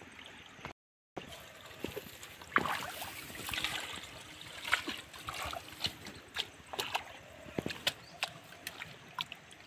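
Water splashing and trickling as a woven bamboo fish trap is handled in a shallow muddy channel, with scattered clicks and knocks throughout.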